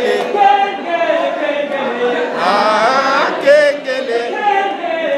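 A group of people singing together in a chant-like song, holding notes that bend in pitch.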